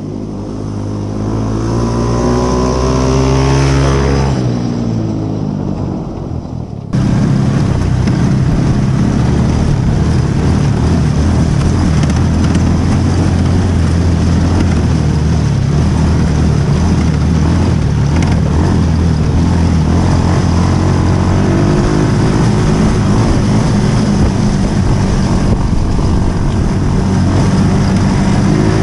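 Coolster mini Jeep's 125cc engine driving up to and past, its pitch rising and then dropping about four seconds in. About seven seconds in the sound jumps up close and the engine runs steadily as the Jeep is driven along.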